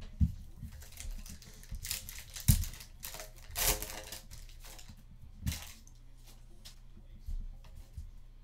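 Trading card packs being handled and torn open: irregular crinkling and tearing of the wrappers, the longest rustles about two and three and a half seconds in, with a few short knocks as cards and packs are set down.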